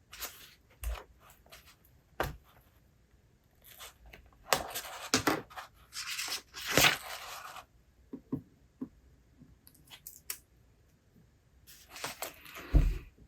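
Paper rustling as book pages are handled and turned: several short rustles and a longer one in the middle, among light taps and knocks, with a soft low knock near the end.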